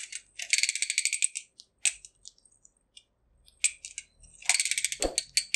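Small 3D-printed Stirling engine car running, its mechanism clattering in rapid runs of ticks. One run lasts about a second near the start and another comes near the end, with a few scattered clicks between.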